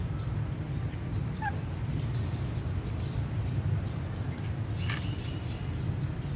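Puppy lapping milk from a plastic bowl, a few faint wet clicks over a steady low rumble, with a brief high chirp about a second and a half in.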